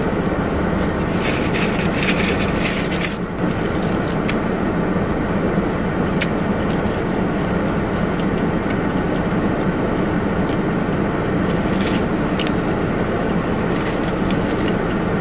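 Steady car cabin noise, the low rumble of a car on the road. A few brief crackling, scraping noises come over it early on and again near the end.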